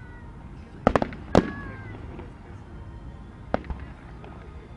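Fireworks shells bursting in a display: a quick pair of sharp bangs about a second in, the loudest bang just after, and one more near the end. A short falling tone follows the loudest bang.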